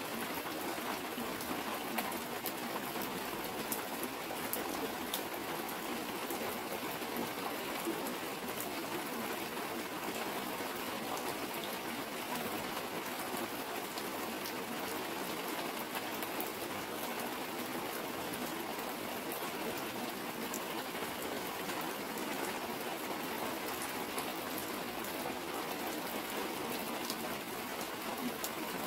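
Steady heavy rain, with many scattered sharp ticks of drops striking clear plastic sheeting as water streams down it.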